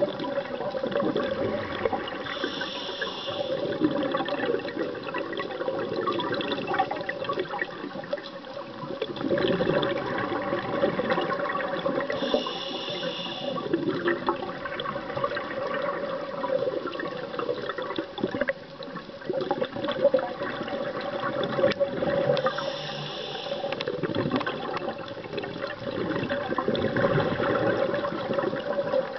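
Underwater sound picked up through a dive camera's housing: a steady rush of water and bubbles, with a scuba regulator hissing three times, about ten seconds apart, as the diver breathes.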